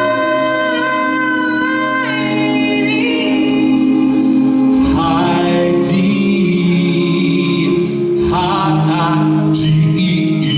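Male a cappella group singing live through microphones and stage speakers: held chords over a deep bass voice that steps to new notes twice, with a high lead voice singing wavering runs above.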